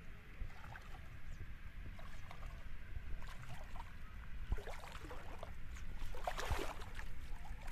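Bare feet wading through shallow water, with irregular splashes that grow louder from about three seconds in and are loudest about six seconds in.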